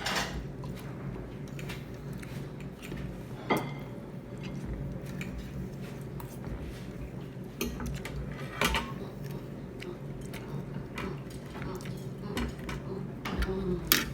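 Cutlery clinking and scraping on plates during a meal. A few sharper knocks are scattered through, over a steady low hum.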